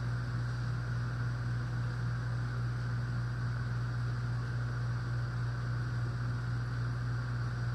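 Steady machine hum of room ventilation: a constant low drone with an even hiss over it, unchanging throughout.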